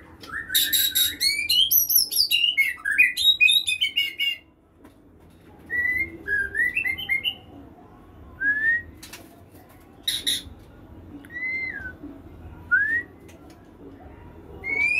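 White-rumped shama singing: a rapid run of rising whistles mixed with harsh rasping notes for about the first four seconds, then short separate whistled phrases every second or two, with one more harsh rasp about ten seconds in.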